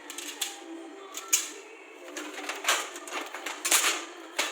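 Metal shelf-rack parts clinking and clattering as they are handled and unpacked, a series of irregular sharp clicks and knocks.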